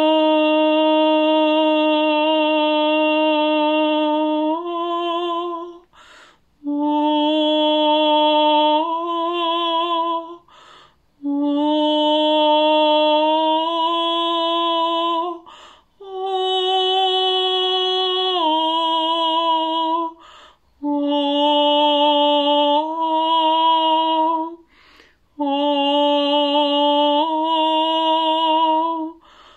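A woman singing long, held open-vowel tones in a sound meditation: six sustained notes, each followed by a brief breath, with the pitch stepping up or down partway through most of them.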